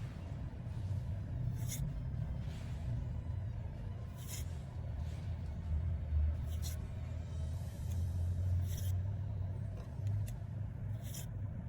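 Yu-Gi-Oh! trading cards being handled and revealed, a short swish of card sliding on card about every two seconds, over a steady low rumble.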